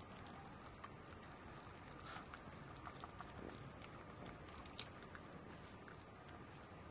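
Faint, irregular wet clicks of a chihuahua licking and smacking cream off a fingertip.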